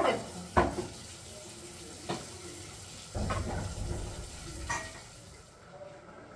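Kitchen work sounds: a few sharp knocks and clinks of pots and utensils on a counter, with a short stretch of low clattering noise about three seconds in.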